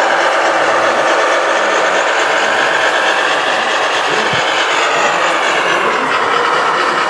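Radio-controlled model construction machines running with a steady mechanical whirring and whine. The whine drifts slightly lower about five seconds in.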